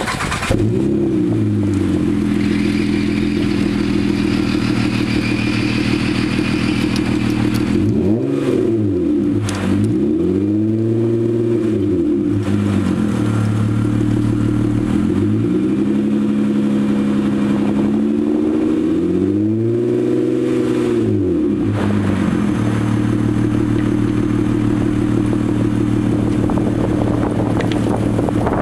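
2006 Honda Ridgeline's V6 idling through a custom exhaust, its muffler relocated under the cab. Partway through it is revved four times, each rev rising smoothly and falling back to a steady idle.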